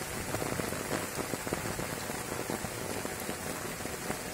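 Steady rain falling, with many small drops ticking on the surface.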